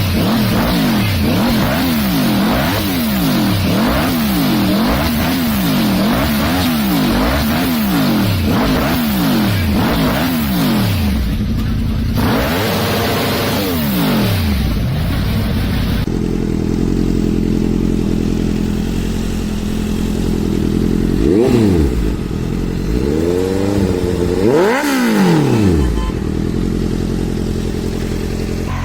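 Motorcycle exhausts being revved. For the first half, an engine is revved up and down over and over, about once a second. Then the sound cuts to another bike idling, which is blipped three times in quick succession.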